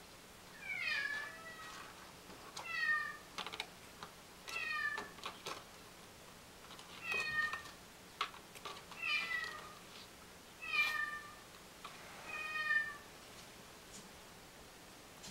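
Young kitten meowing, about seven short high-pitched calls that each fall slightly, spaced a second and a half to two seconds apart, with light clicks in between.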